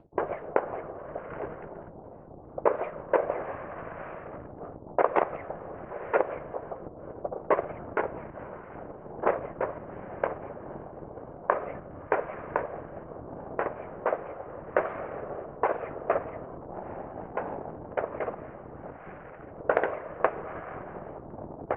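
Distant New Year fireworks: sharp bangs at irregular intervals, roughly one a second, some coming in quick pairs, over a steady background din.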